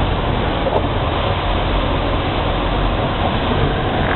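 Steady engine and road noise of a truck driving, heard from inside the cab.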